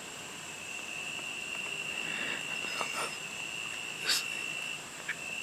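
Steady insect chorus of crickets holding one high, unbroken pitch, with a few short handling clicks and rustles, the loudest about four seconds in.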